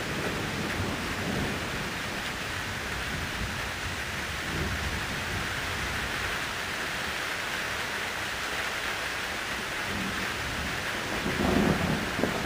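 Thunderstorm: rain falling steadily, with a low rumble of thunder starting to build near the end.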